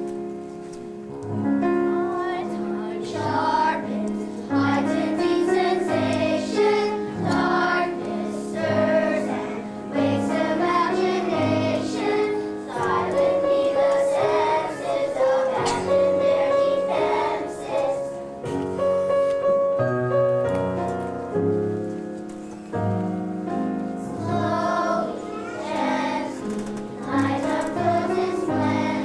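Children's choir singing together over instrumental accompaniment with a regular low bass pulse.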